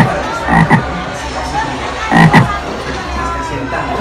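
Three short, loud, low croaks: one at the start, one about two-thirds of a second in, and one just past two seconds in, over steady crowd noise.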